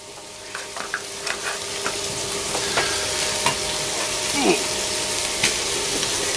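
Diced meat and onions frying in a nonstick pan, the sizzle building over the first couple of seconds as slabs of butter are dropped in, then holding steady, with a few light clicks.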